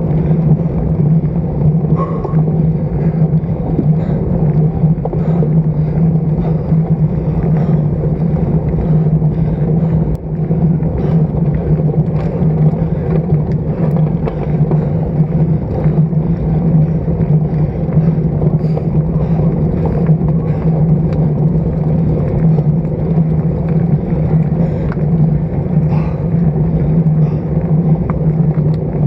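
Steady rushing road and wind noise of a road bicycle in motion, picked up by an action camera mounted on the bike's stem, with a constant low hum and scattered faint ticks throughout.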